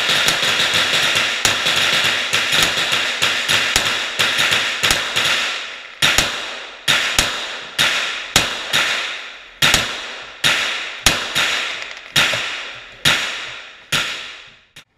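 .22-calibre H&K MP5 fired semi-automatically down an enclosed indoor range, each shot echoing. The shots come in a quick run for the first five seconds or so, then slow to about two a second and stop a second before the end.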